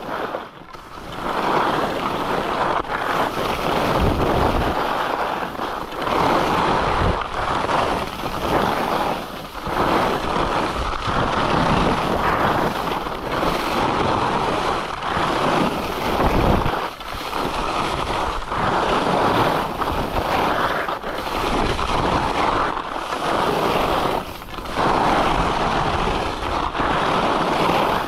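Skis carving and scraping over groomed, chopped-up piste snow: a hiss that swells and dips with each turn, every couple of seconds, mixed with wind buffeting the camera's microphone.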